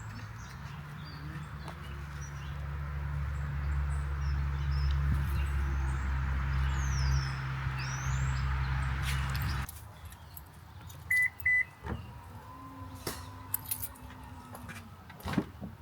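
Car engine idling with a few bird chirps over it, cutting off abruptly; then two short high beeps, with scattered clicks after.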